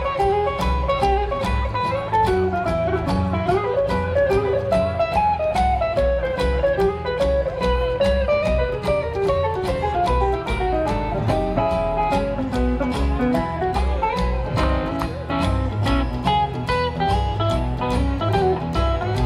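A juke-joint swing band playing an instrumental break, with no vocals: upright bass keeping a steady beat under acoustic and electric guitars, and a lead line moving over the top.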